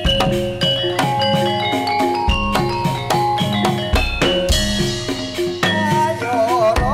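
Live Javanese gamelan music accompanying a jaran kepang dance: ringing metallophone notes playing a melody over steady, regular drum strokes. A wavering melody line comes in near the end.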